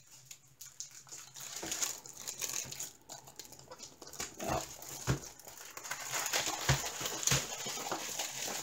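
Clear plastic packaging crinkling and rustling as a diamond painting kit's rolled canvas is turned over and slid out of its plastic sleeve. A few knocks come in the second half.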